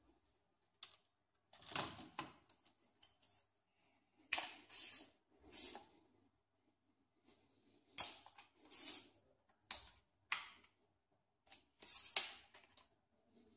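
Manfrotto Compact Light aluminium tripod being handled: short clicks, rattles and scrapes as its legs and leg locks are worked, coming in bursts every second or two.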